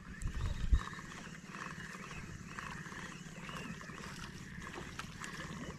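Wind buffeting the microphone in low rumbling thumps, mostly in the first second, then a steady hiss of wind and water.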